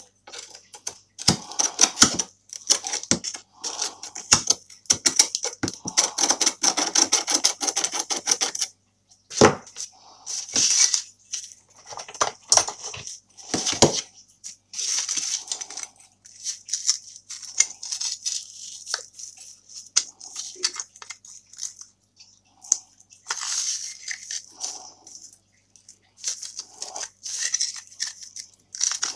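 Hand tools scraping and prying rotted wood out of a rusted steel shovel socket: rapid scratching, clicks and small knocks of metal on rusty metal and splintering wood. A dense run of fast scraping comes in the first third, then scattered scrapes and taps.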